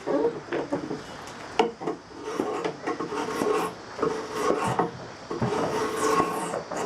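Drawknife paring green black locust on a hatchet handle: a run of light scraping strokes, about one a second, each a short rasp of the blade shaving wood.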